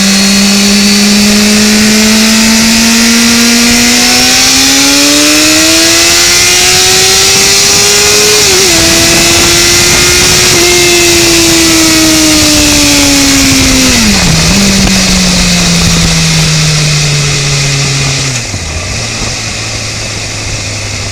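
1992 Honda CBR600F2's inline-four engine revving hard, its note climbing steadily for about eight seconds with two quick dips in pitch. It then winds back down with two more brief dips and settles to a lower, steadier note, fading near the end.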